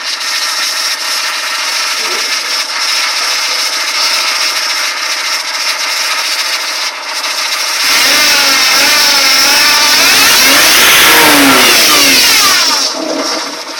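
Mitsubishi ASX 1.8 engine idling steadily, then revved from about eight seconds in, its pitch rising and falling several times before it drops back toward idle near the end.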